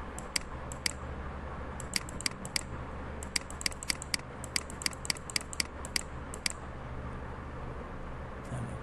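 Computer mouse button clicked rapidly and repeatedly, about two dozen sharp clicks, many in quick pairs, that stop about six and a half seconds in: repeatedly clicking Undo in SketchUp. A low steady hum lies underneath.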